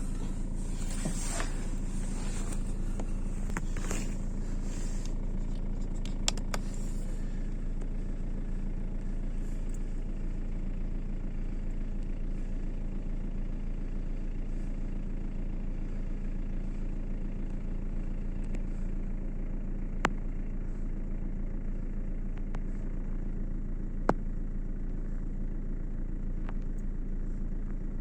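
Chinese diesel air heater running: a steady low hum from its fan and burner, with some rough hiss in the first few seconds and a few sharp single clicks later on.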